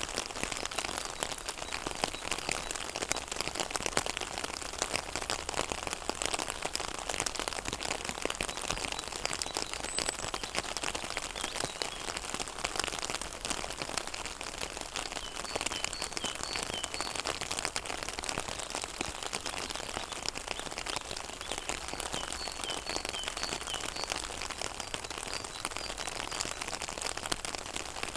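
Rain falling on a pond: a dense, steady patter of drops on the water surface. A few short runs of faint high notes are heard about halfway through and again near the end.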